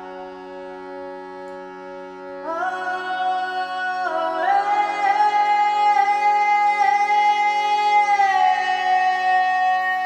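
Meditative chant music: a steady drone with a gently pulsing tone under a voice singing long held notes. The voice comes in about a quarter of the way through, steps up in pitch about halfway, and settles lower near the end.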